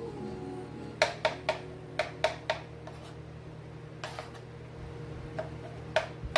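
Kitchen knife cutting through beets and tapping down on a plastic cutting board: sharp taps in quick runs of three, about a second in and again a second later, with a few more near the end, over a steady low hum.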